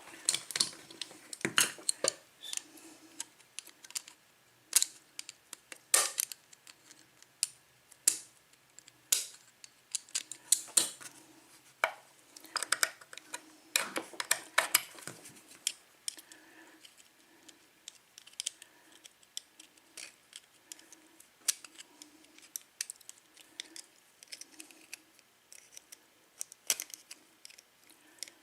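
Small metal tools clicking and scraping against a padlock's body while prying at its stubborn retaining clip, in irregular sharp clicks with pauses between.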